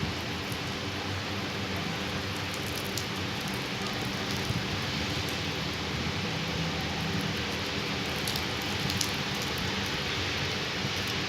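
Rain falling steadily, with a few sharp drop ticks scattered through it.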